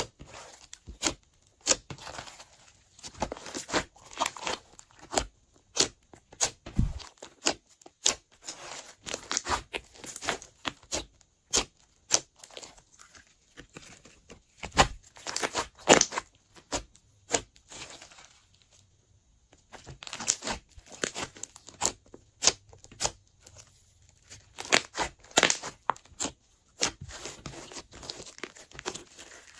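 Glossy slime being mixed and worked by hand, giving a run of irregular sticky clicks, pops and crackles, with a short lull about two-thirds of the way through.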